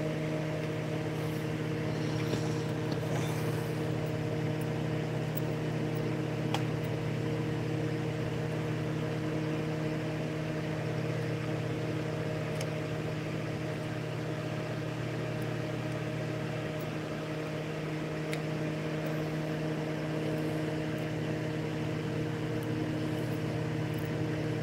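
Steady hum of a small motor, holding one even pitch with a few faint ticks over it.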